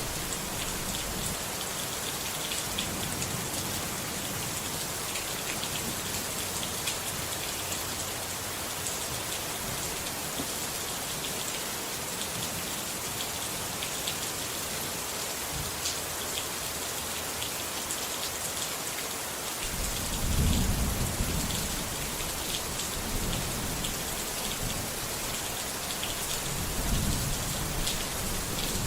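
Steady rain with the patter of drops. From about two-thirds of the way through, thunder rolls in as a low rumble that swells a few times.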